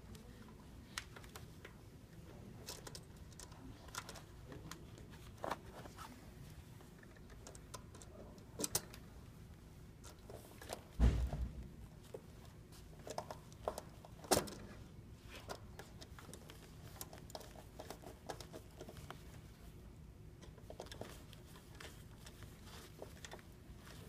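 Scattered light clicks and rattles of a screwdriver and wire connectors being handled against an air-conditioner condenser's sheet-metal panel while its control wiring is reconnected, with a louder thump about 11 seconds in and a sharp knock about 14 seconds in.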